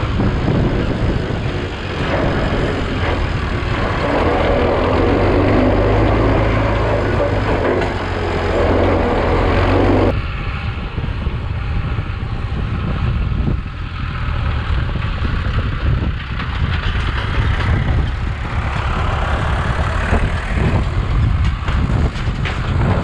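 Farm tractor engine running steadily while towing grain wagons. About ten seconds in, the noisy upper part of the sound cuts off abruptly, leaving mainly the low engine rumble.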